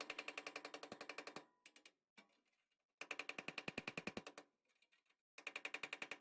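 A power tool cutting the old sheet-metal floor of an Early Ford Bronco: a fast, even rattle of strokes, about fourteen a second. It comes in bursts of about a second and a half, with short pauses between them.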